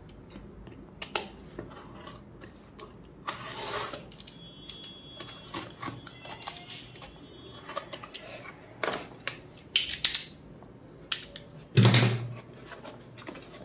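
Paper-and-cardboard shipping package being opened by hand: irregular rustling, scraping and tearing of the packaging with scattered taps and clicks, and a louder knock against the desk near the end.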